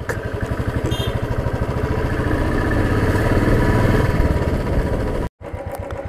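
Motorcycle engine running with a fast, even pulse. The sound cuts out completely for a moment about five seconds in.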